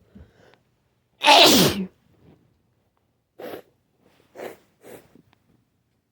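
One loud sneeze with a falling voice about a second in, followed by three short, quieter sneezing or snorting bursts.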